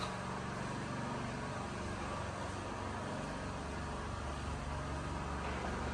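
A steady, low engine rumble under a constant background noise, with no break or change.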